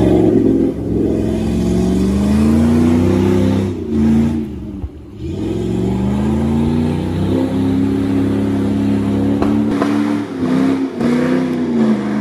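Jeep Grand Cherokee's engine revving as it pushes through deep mud, the revs rising and falling with a brief lift-off about four seconds in. The sound cuts abruptly to a thinner engine note a couple of seconds before the end.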